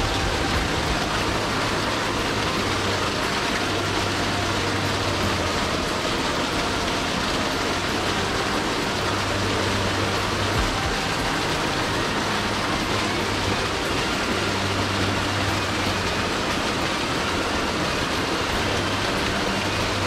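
Mountain stream water rushing over rocks, a steady, loud hiss with no break.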